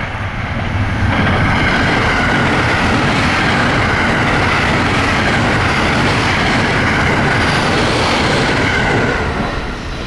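A train passing on the line: a steady, loud rush of wheel-on-rail running noise that builds over the first second and begins to fade about nine seconds in.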